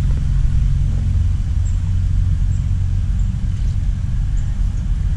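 Steady low rumble of road traffic going by.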